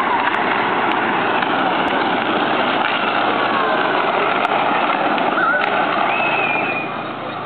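ATV engines running steadily as a line of quads drives off, getting quieter near the end.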